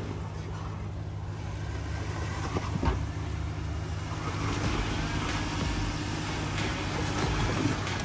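Off-road 4x4's engine running steadily at low revs as it crawls over rocks, with a single knock about three seconds in.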